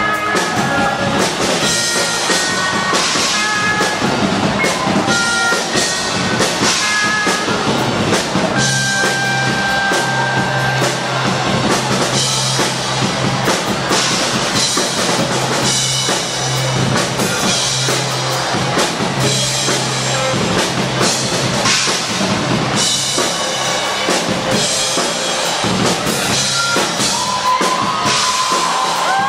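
Live rock band playing an instrumental passage: drum kit, electric bass, electric guitar and keyboard, with a held low note under most of it.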